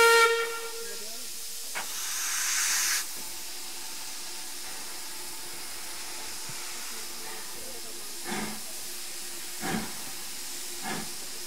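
Steam locomotive's whistle cutting off just after the start, then a loud burst of steam hiss about two seconds in. Near the end, the first slow exhaust beats of the LSWR Adams O2 0-4-4 tank engine W24 Calbourne come about one a second as it starts away.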